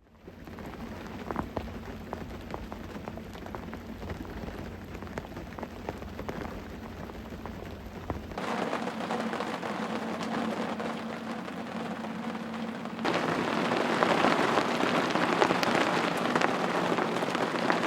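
Steady rain falling, a dense hiss with many small drop taps. It cuts abruptly to heavier rain about eight seconds in, and heavier again about thirteen seconds in.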